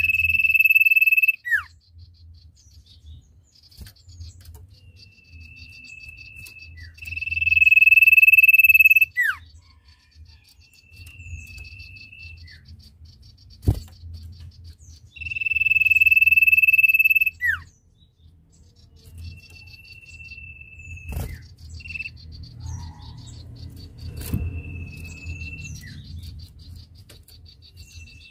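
Common iora (sirtu) giving long, shrill drawn-out whistles, each held about two seconds and ending in a short falling slur, repeated several times with fainter whistles in between. A steady insect trill runs underneath.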